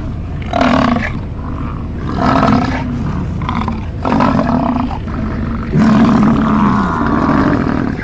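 American bison bellowing: about four low, drawn-out roars over a steady low rumble, the last one the longest.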